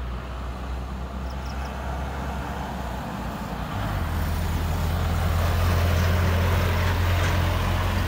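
Jet engines of a Boeing 787 Dreamliner rumbling as the airliner rolls out on the runway after landing, with a steady low hum under a wide roar. The sound grows louder about four seconds in.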